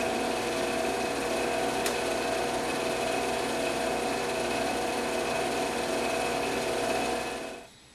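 Drill press running with a twist bit boring larger holes through a wooden engine block: a steady motor whir with a faint click about two seconds in. It cuts off near the end.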